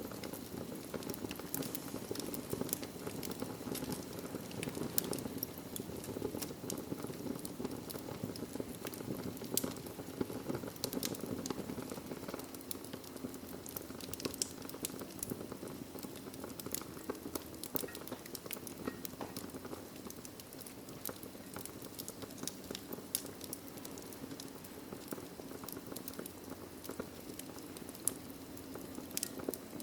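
Wood fire burning in a fireplace, with a steady low rush of flames and frequent sharp crackles and pops scattered irregularly throughout.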